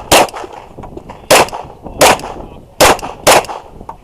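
Glock 34 9mm pistol firing five shots at a USPSA stage, spaced about half a second to a second apart, each a sharp crack with a short echo.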